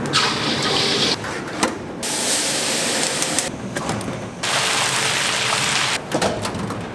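Liquid poured into a hot wok sizzles for about a second, followed by steady rushing commercial-kitchen noise that cuts in and out abruptly, with a few sharp clicks near the end.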